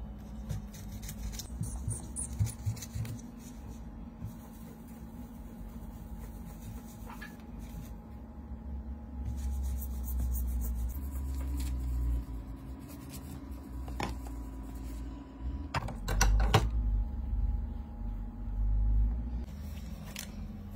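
Tissue rubbing over the glass back of an iPhone held in a clamp, with a few sharp clicks and knocks of handling about two-thirds of the way through and a steady low hum underneath.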